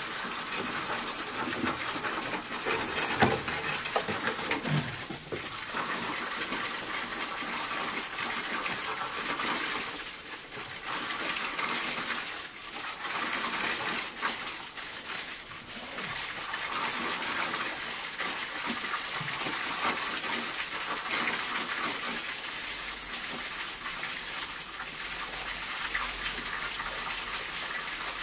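Water rushing through heating pipes as the system is refilled, a steady flowing noise that swells and eases every few seconds.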